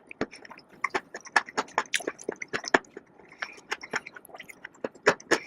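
Close-miked chewing of crisp fried food, a quick irregular run of sharp crunches.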